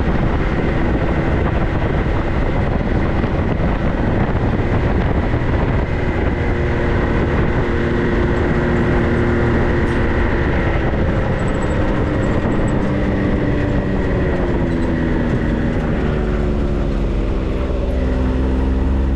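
Off-road 4x4's engine running while driving, over a heavy wash of road and wind noise; the engine's pitch dips and shifts in the last few seconds as the throttle changes.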